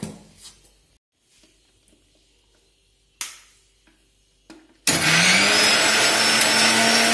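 Electric mixer-grinder switched on about five seconds in, its motor spinning up quickly and then running steadily as it grinds spinach leaves and green chillies in a steel jar. Before that come a few light clicks as the plastic lid is pressed on and the jar is set on the base.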